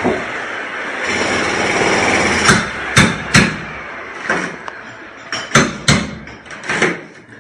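Construction-site hammering: about ten sharp, irregularly spaced hammer blows, beginning about two and a half seconds in. They follow a steady machine noise that fades away.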